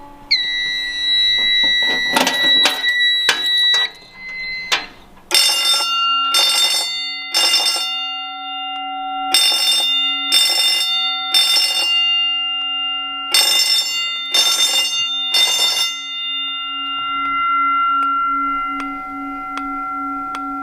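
Gentex fire alarm bell ringing in short pulses: three groups of four, each pulse about half a second, after which the bell's gong keeps ringing and slowly dies away. Before the bell starts, a steady high tone sounds for about four seconds, with some clicks.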